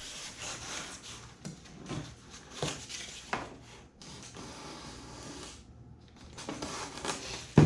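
Styrofoam pieces being handled and fitted by hand: rubbing and scraping with a few light knocks, and one sharper knock near the end.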